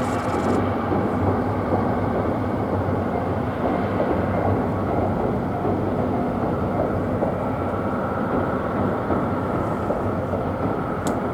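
Steady rumble of a train running on the rails. A high hiss stops just after the start, and two sharp clicks, likely camera shutter clicks, come near the end.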